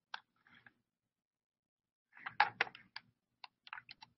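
Faint, scattered small clicks and taps, about a dozen, one near the start and the rest bunched from about two seconds in.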